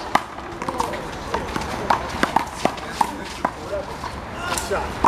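One-wall handball rally: a small rubber ball slapped by open hands, smacking the wall and bouncing on the pavement in a quick, irregular series of sharp smacks, with voices in the background.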